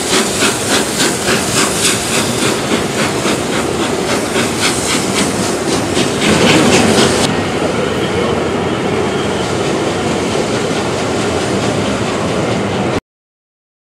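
Steam-hauled passenger train running past at speed, its coaches giving a fast, even beat of about three pulses a second over a rushing noise. About seven seconds in the beat gives way to a duller, steady rumble, which cuts off suddenly near the end.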